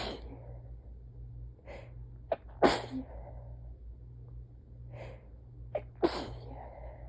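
A person's sneezing fit: three sneezes, the first right at the start and the others about three seconds apart. Each of the later two is preceded by a drawn-in breath and a short catch.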